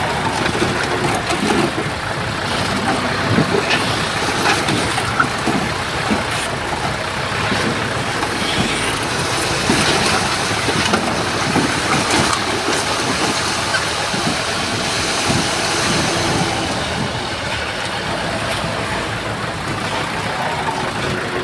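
Heavy earthmoving machines, a bulldozer and dump trucks, running steadily, with many irregular clanks and knocks through the engine noise.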